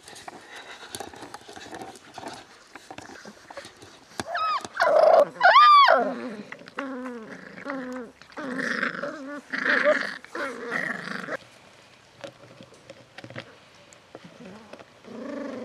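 Beagle puppies play-fighting: two high yelps about five seconds in, the loudest sounds, followed by a string of short growls, with quieter scuffling in between.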